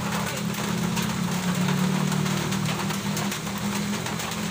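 Large diesel truck engine idling steadily as a low hum, with rain pattering over it.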